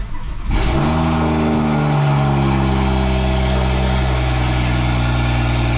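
BMW F30 335i's turbocharged N55 inline-six, running through a catless downpipe, cranked by the starter and catching within about half a second. It flares to a high idle that eases down and settles into a steady idle about four seconds in, heard from the driver's seat.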